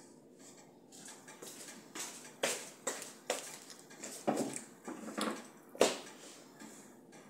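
Plates and cutlery clinking and knocking on a tabletop as someone settles in to eat: a string of sharp knocks and clinks, the loudest near the end.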